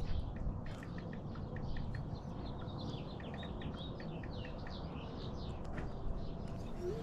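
Birds chirping, a rapid run of many short high notes, over a low steady rumble.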